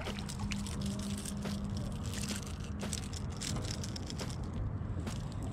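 Fishing rod, reel and a freshly landed small fish being handled: irregular faint clicks and rustles over a steady low rumble, with a low hum through the first half that stops partway through.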